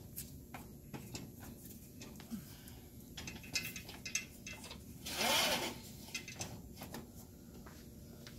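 Pegboard panel being fitted into the slotted metal uprights of a gondola shelving unit: scattered light clicks and knocks, with a louder scrape lasting under a second about five seconds in.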